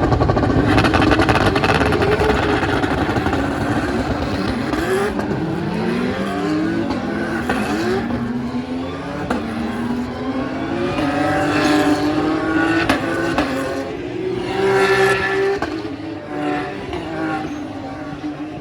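A field of BTCC touring cars racing past, their turbocharged 2.0-litre four-cylinder engines revving up through the gears one after another, with pitch rising and dropping at each gear change. Loudest at the start and dying away near the end as the pack moves off.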